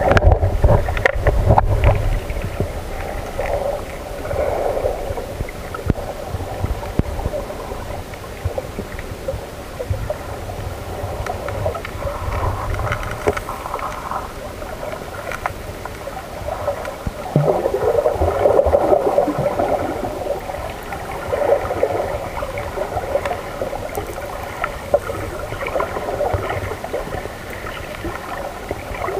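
Underwater sound picked up by a camera in a waterproof housing: muffled sloshing and gurgling of water with a faint steady hum running through it, louder for a few seconds past the middle.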